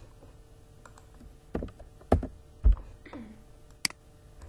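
A few separate computer keyboard taps and mouse clicks, the loudest three between about one and a half and three seconds in, then a sharp click near the end.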